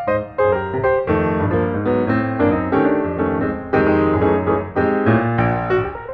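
Background piano music: a run of quick notes over a bass line.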